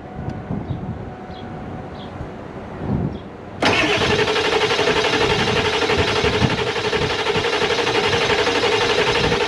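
A 7.3 Powerstroke turbo diesel being started: the starter and engine cut in abruptly about three and a half seconds in and keep going steadily and loudly. It is slow to start after the high-pressure oil pump replacement, because the oil reservoir has to refill before the pump builds pressure.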